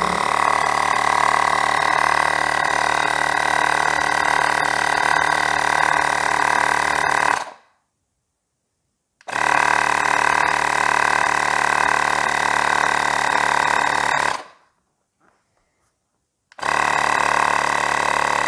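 Ferrex battery-powered mini air compressor running steadily as it pumps air into a football. It cuts off abruptly about seven seconds in, starts again about two seconds later, stops again about fourteen seconds in, and starts once more near the end.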